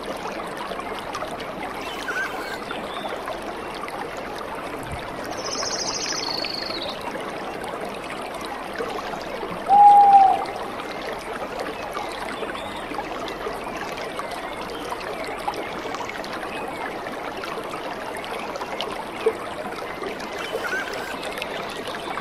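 Steady rush of water from a waterfall and rocky stream, with a few short bird-like chirps. About ten seconds in, a brief, loud, clear whistle-like call stands out above the water.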